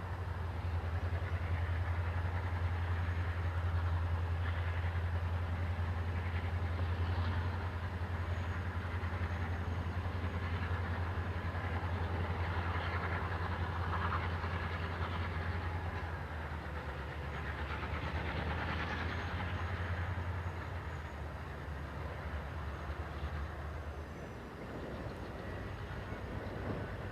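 EMD diesel-electric locomotives of the GM and ALF classes working a loaded grain train: a steady deep engine drone with rail and wagon noise over it. The deep drone drops away a few seconds before the end.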